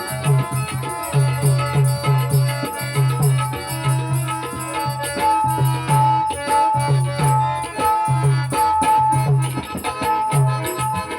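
Music: a steady drum rhythm of deep, repeated strokes under a melody of held notes.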